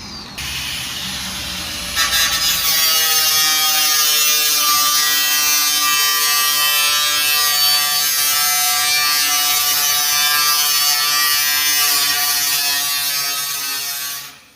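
Electric grinder motor running with a steady high whine, jumping louder about two seconds in and winding down near the end.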